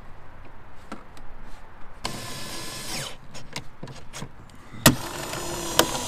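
Cordless screwdriver driving the trim-panel screws back into a truck door in two short runs: one about two seconds in lasting about a second, and one near the end that winds down. A few sharp clicks come in between.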